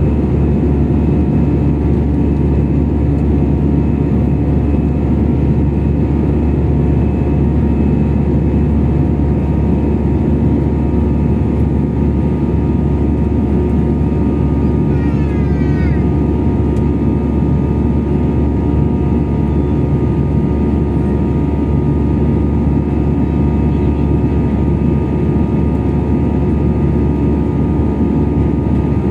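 Jet airliner in flight heard from inside the passenger cabin: a steady, loud drone of engine and airflow noise with several constant humming tones. A brief faint rising chirp is heard about halfway through.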